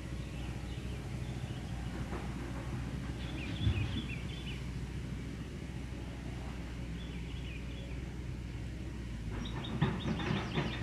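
Outdoor ambience: a steady low rumble with birds chirping now and then, and a quick run of rapid high chirps or ticks near the end.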